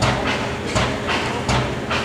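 Worthington-built Snow 600 HP twin-tandem, double-acting natural-gas engine running slowly, with heavy beats about every three-quarters of a second and lighter knocks between them over a steady hum.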